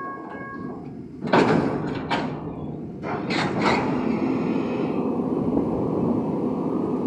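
SANY reach stacker lifting a loaded steel shipping container off a stack: about a second in come several loud metallic bangs and scrapes as the container breaks free, then the machine's diesel engine runs steadily under load as the boom raises it.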